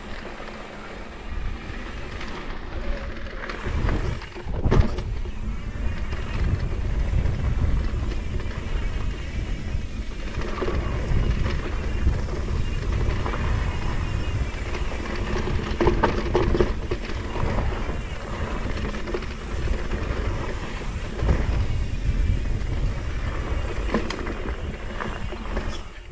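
Mountain bike ridden fast down a dirt trail: wind buffets the microphone over the rattle and rumble of the bike, with a couple of sharp knocks about four to five seconds in.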